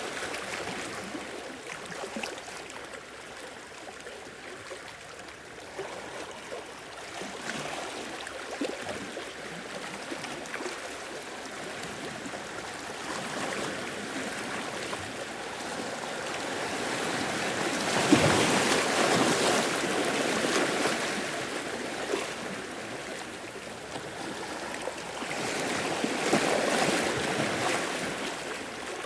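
Sea waves washing in on the shore, a steady rush of surf that swells twice, loudest about two-thirds of the way through, with a smaller swell near the end.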